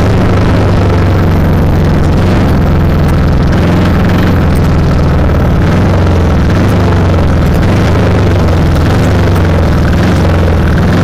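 Vehicle engine running at a steady pitch, recorded by a camera mounted on the moving vehicle, with wind and rumble over the microphone.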